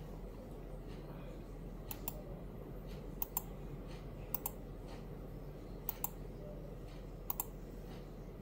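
Faint pairs of short, sharp clicks, five times at uneven gaps of about one to one and a half seconds, over a steady low electrical hum.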